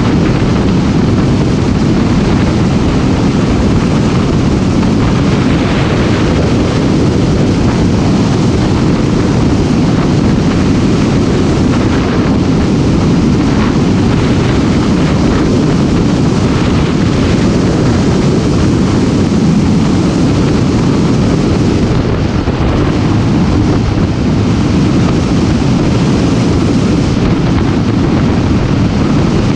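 Motorcycle on the move: engine running under a loud, steady rumble of wind on the microphone.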